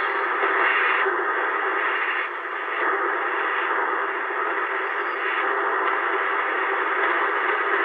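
Steady hiss and static from a shortwave receiver's speaker, with no station clearly heard. The top of the hiss thins out for short spells several times.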